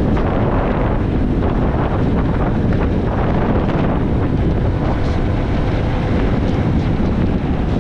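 Heavy wind buffeting the microphone: a loud, steady, low rumbling rush with no break.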